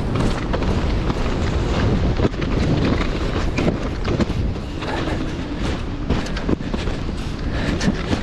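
Skis sliding fast over firm snow with a continuous scraping hiss, rattling and knocking over small bumps, and wind buffeting the camera microphone.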